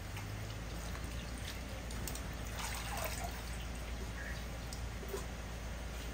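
Water trickling and dripping in a pot, with a few faint clicks, over a steady low hum.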